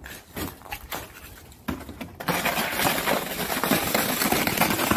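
A black plastic saucer sled, pushed about by a dog, scraping over crusty snow and ice. Faint crunching for the first two seconds, then a loud, steady, rough scrape.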